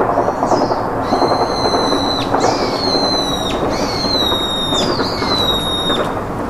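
Infant long-tailed macaque crying: about five high, thin squealing calls in a row, each about a second long and sliding down in pitch at its end. A loud, steady crackling noise runs underneath.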